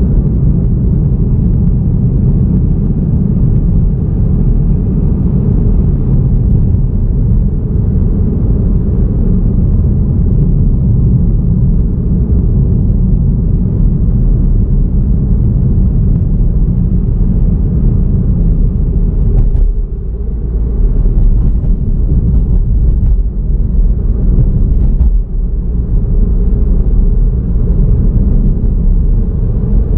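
Steady low rumble of a car driving at road speed, mostly tyre and wind noise. A few brief knocks come about two-thirds of the way through.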